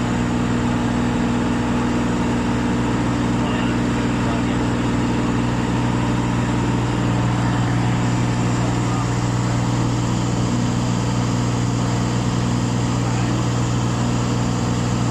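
Cessna 182's piston engine and propeller running at a steady drone, with no change in pitch.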